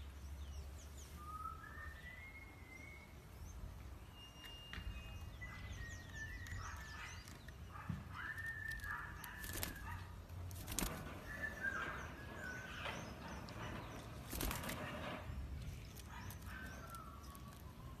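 Cockatiel whistling a series of short, clear notes, several stepping or gliding upward, with a few brief sharp rustles in between.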